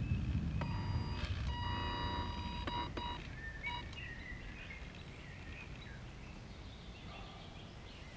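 Small electric RC boat drive whining in a steady tone that cuts in and out over the first three seconds, over a low rumble. After that, birds chirp faintly as the level drops.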